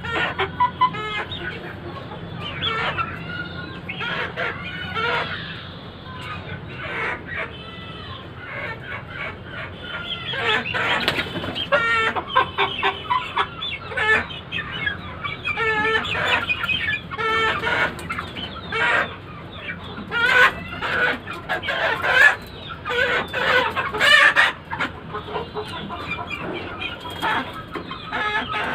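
Aseel chickens clucking and calling, many birds at once, with calls overlapping throughout.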